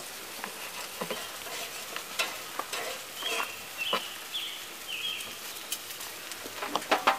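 Spyderco Street Beat knife slicing cooked chicken breast, its blade clicking and knocking against a plastic cutting board in scattered short strokes. A few short high chirps sound about midway.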